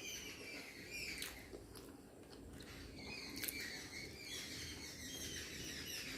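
Close-miked eating of Maggi noodles and momo: wet mouth sounds with drawn-out squeaky slurps and a few sharp clicks.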